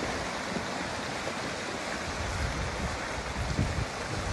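Flash-flood torrent of rushing, churning floodwater: a steady, full noise of moving water, with irregular low rumbling in the second half.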